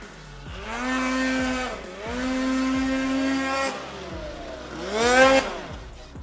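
Snowmobile engine revving hard under load in deep snow: two long, held revs, then a sharp rev that climbs and drops near the end, the loudest of the three.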